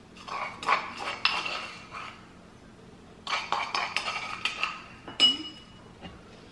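A metal spoon scraping and clinking against a mortar while scooping out freshly pounded chili-garlic paste, in two quick bouts of scrapes and taps. About five seconds in comes one sharp clink with a short ring.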